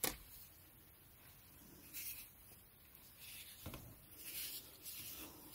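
Faint rubbing and rustling of waxed polyester macrame thread being handled and drawn through the fingers while a knot is tied, in several short soft brushes. A soft knock comes right at the start and a lighter tap about three and a half seconds in.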